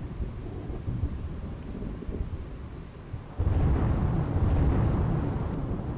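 Thunderstorm sound effect: rain and a low rumble, then a loud thunderclap breaks about three and a half seconds in and rolls on, slowly fading.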